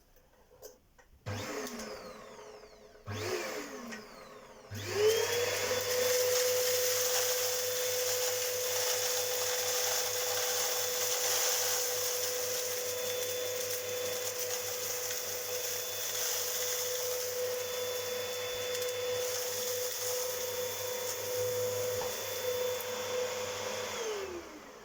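Hoover Whirlwind Evo vacuum cleaner switched on twice for a moment, its motor whirring down each time. On the third start it runs steadily with a constant hum and airflow hiss for about twenty seconds, then is switched off and winds down near the end.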